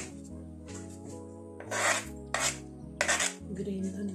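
Wooden spoon scraping against the inside of a metal pot while stirring a thick curry, a few short scrapes, over steady background music.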